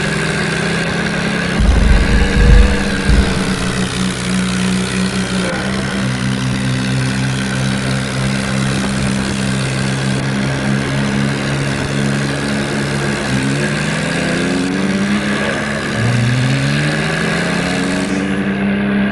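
Heavy diesel engine running steadily, then revving up in rising sweeps twice in the second half, with loud low thumps about two seconds in.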